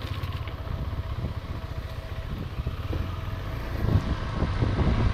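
Motorcycle engine running at low speed over a rough dirt track, a steady low rumble that grows louder near the end.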